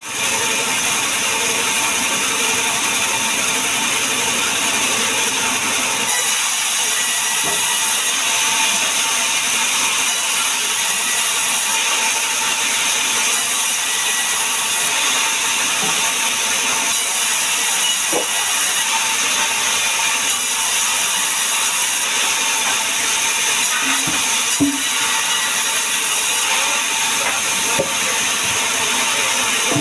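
Sawmill band saw running steadily, a loud continuous mechanical noise with a high-pitched hiss from the blade. A few short wooden knocks come in the second half as logs are handled on the saw carriage.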